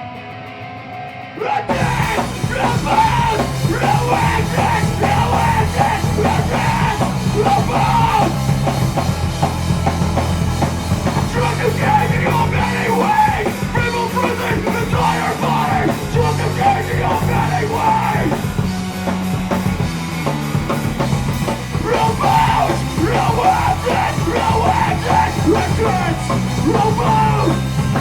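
Live rock band playing loud: a lone guitar at first, then about a second and a half in the drum kit, bass and electric guitars come in together in a heavy punk-metal style.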